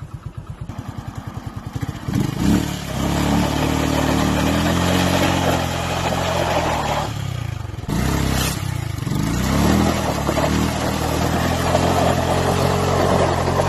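Yamaha R15 V2's single-cylinder four-stroke engine, breathing through an aftermarket K&N air filter, pulsing at idle for about two seconds, then revving up and holding steady higher revs. The revs drop briefly near eight seconds and climb back, with smaller rises and falls after.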